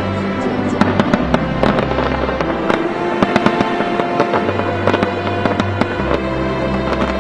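Aerial fireworks display: many bangs and crackles in quick, overlapping succession, heard over music with a low bass line.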